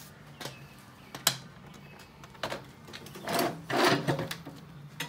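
Solar panels' metal frames and folding wire stands being handled and moved: scattered sharp clicks and knocks, the sharpest about a second in, and a louder stretch of scraping and rustling around three to four seconds in.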